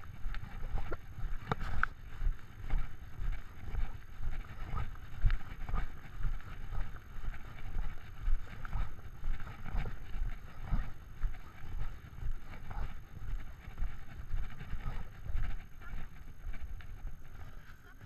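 Walking steps jolting a chest-worn camera: regular low thumps about twice a second, with occasional light clicks, settling down right at the end as the walker stops at the kerb.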